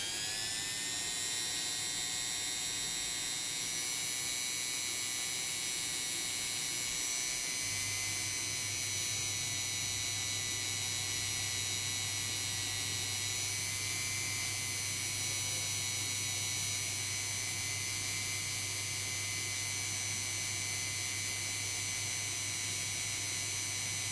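Small handheld rotary tool's electric motor whining as it spins a cotton swab against a clear plastic window piece. It rises in pitch as it comes up to speed at the start, then holds a steady high whine. A low hum joins about eight seconds in.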